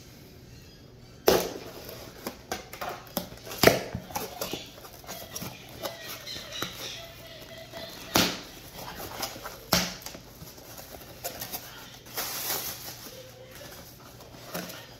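Cardboard shipping box being slit open along its packing tape with a knife, then the flaps pulled back and the contents handled: scraping and rustling of cardboard broken by sharp cracks and knocks, the loudest about four seconds in.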